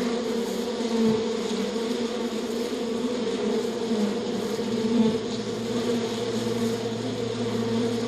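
Flying insect buzzing steadily on its wings, its pitch wavering slightly; a second, lower-pitched buzz joins about five seconds in.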